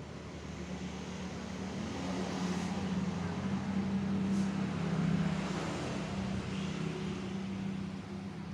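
Salvaged refrigerator compressor running with a steady hum, pumping air into a balloon; the sound swells slightly about five seconds in.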